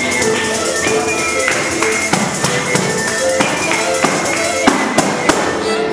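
Period-style dance music played by a small ensemble: a wind instrument carries a melody of held notes over a beat struck on a frame drum, with a few sharper, louder drum strokes near the end.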